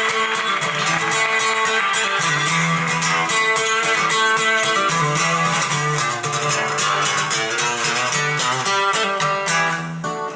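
Guitar band music with a steady beat, played back through a Pioneer PE-101A full-range speaker driven by a valve (tube) amplifier. It dips briefly near the end.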